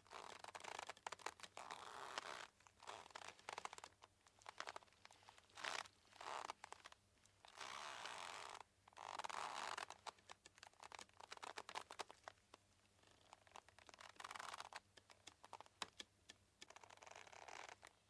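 Boat rope creaking and squeaking as it rubs under strain, in irregular stretches of a second or so full of small crackles, broken by short quiet gaps.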